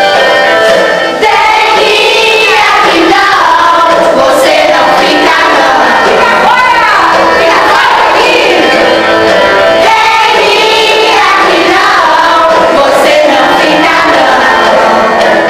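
A group of children singing a song together over instrumental music.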